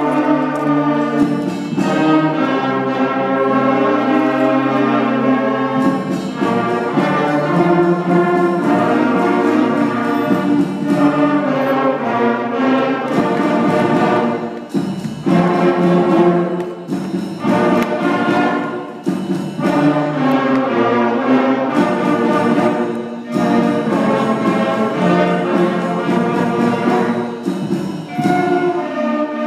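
Sixth-grade school concert band playing a piece together, flutes and brass such as trumpets sounding in harmony, with brief breaks between phrases.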